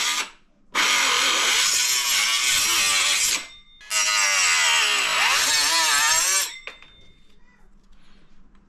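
A power tool cutting through a plastic milk crate: a brief burst, then two runs of about two and a half seconds each, its pitch wavering.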